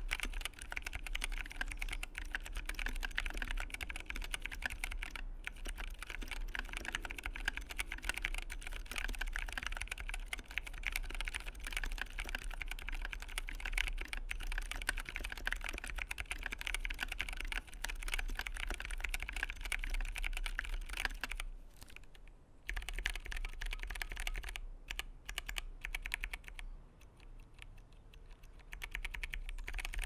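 Typing on a custom 60% mechanical keyboard with 65 g Zealio tactile switches, DSA keycaps, an aluminium mounting plate and an acrylic case: a fast, dense run of key clacks that breaks off about two-thirds of the way through, then goes on in sparser bursts.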